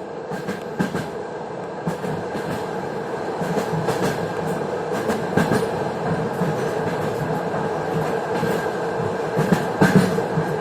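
Train wheels clattering over rail joints, heard from inside a moving passenger carriage: a steady rolling rumble with a constant hum, broken by short wheel knocks, with a few louder knocks about halfway and near the end.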